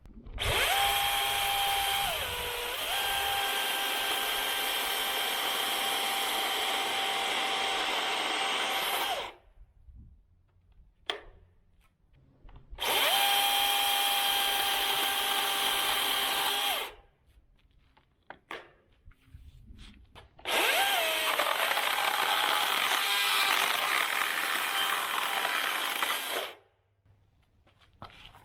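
DeWalt 60V FlexVolt brushless battery chainsaw with a 16-inch bar cutting cedar logs: three runs of a steady electric whine, about nine, four and six seconds long, with short pauses between them. The pitch dips briefly early in the first and third runs as the chain takes the load.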